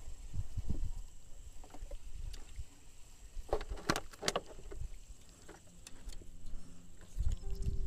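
Small wooden fishing boat on the water: low knocks and water lapping against the hull, with a short run of sharp knocks and clicks about halfway through.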